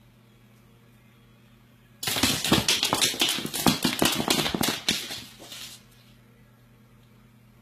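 Iguana's claws scrabbling and clicking on a hardwood floor as it lunges at and grapples with a stuffed toy: a sudden burst of rapid scratches and knocks about two seconds in, lasting nearly four seconds and trailing off.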